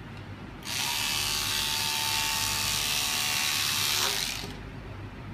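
WBT-1 portable electric scissors running with a steady buzz as the blade cuts through scarf fabric, starting about half a second in and stopping near the end.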